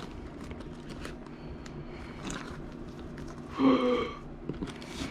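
Faint rustling and small ticks from packaging being handled, over a low steady hum, with one short pitched sound a little over three and a half seconds in.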